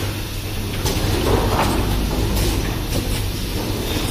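Automatic rapid test kit assembly machine running: a steady low hum, with short mechanical clicks and clatters from its working strokes every second or two.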